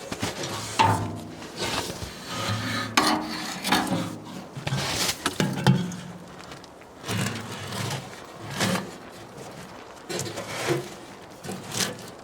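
Hand work on the tent's stove-pipe opening: irregular knocks, scrapes and rubbing of materials being handled and fitted.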